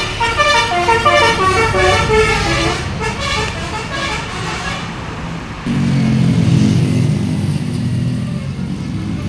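A bus's telolet multi-tone musical horn plays a quick tune of short stepped notes and stops about five seconds in. The bus's engine then comes in loud and low as the bus passes.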